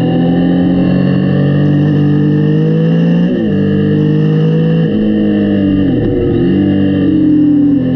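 Yamaha Tracer 900's three-cylinder engine pulling through the gears. The pitch climbs steadily and drops at upshifts about three seconds in and again near five seconds, dips briefly and recovers just after six seconds, then climbs again to another shift at the end.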